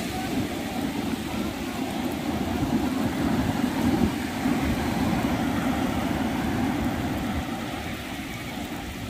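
Steady rush of shallow surf washing over a beach, with wind buffeting the microphone.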